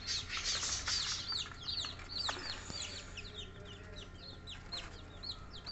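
A brood of newly hatched bantam chicks peeping, with many short, high chirps that fall in pitch, several a second and overlapping. There is a brief rustle about half a second in, over a low steady hum.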